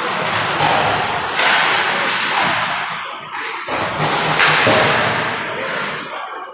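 Ice hockey play in an indoor rink: skate blades scraping the ice, with several sudden sharp scrapes and thuds from skates, sticks and puck.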